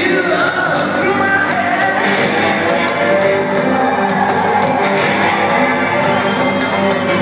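Live rock band playing loudly, with electric guitar and a male singer, heard with the echo of a large concert hall.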